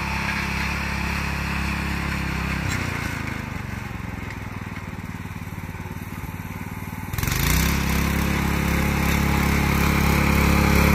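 Small 212cc single-cylinder engine on a lawn-tractor go-kart, running steadily, then throttling down to a lower note about three seconds in. A little after seven seconds it is opened up sharply again, the pitch climbing quickly and then holding loud and high.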